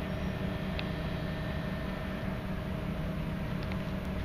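Steady low mechanical hum and rumble that holds an even pitch throughout, with a brief faint high chirp about a second in.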